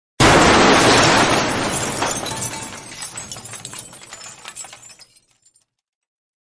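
Glass shattering: one sudden loud crash, then shards tinkling and settling, fading away over about five seconds.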